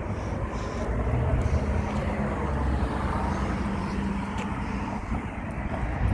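A car driving, its engine and tyres making a steady rumble with road noise.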